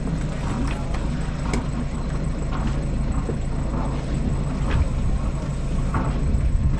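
Sailboat engine running steadily at low speed, a low hum, with a few light knocks and clicks scattered over it.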